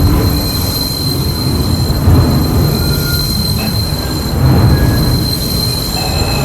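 New York City Subway 4 train arriving at a station: a loud, steady low rumble of wheels on rail, with a high wheel squeal held throughout.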